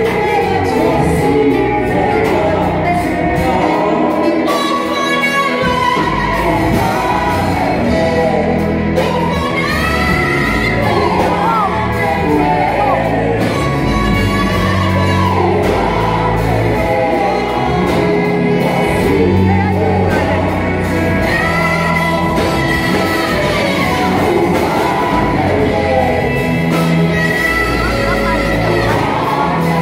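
Live gospel worship singing: a woman sings lead into a microphone and backing singers join in, over amplified accompaniment with a bass line that changes note about once a second.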